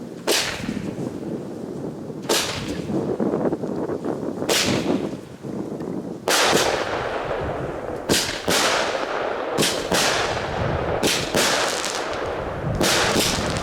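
Comet 'Hot Explosions' consumer firework battery firing a series of sharp shots, each followed by a short fading hiss. About two seconds apart at first, then faster and often in close pairs.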